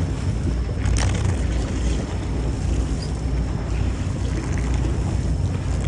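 Wind on the microphone aboard a boat at sea: a steady low rumble with a faint click about a second in.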